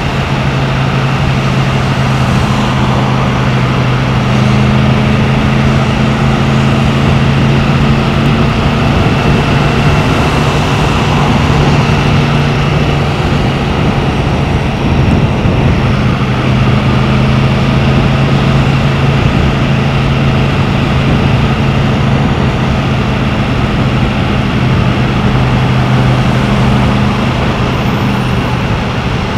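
Yamaha MT-10's crossplane inline-four engine running at fairly steady revs while riding, heard from an onboard camera over a steady rush of wind and road noise.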